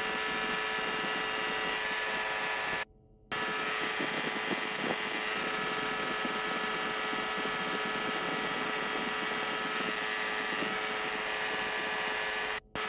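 FlightStar ultralight's engine and pusher propeller droning steadily in flight. The sound cuts out for about half a second about three seconds in, and again briefly near the end.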